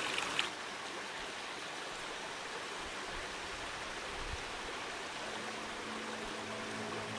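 Hot-spring water running and trickling steadily over rocks and shallow pools. Steady background music tones come in about five seconds in.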